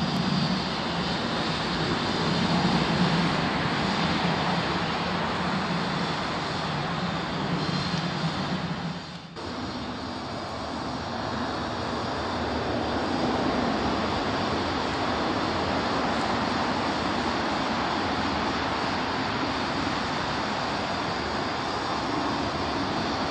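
Diesel locomotive engines running steadily close by, with a low drone over the first nine seconds. After a short dip about nine seconds in, the sound is Class 33 diesel 33002's Sulzer eight-cylinder engine running at idle.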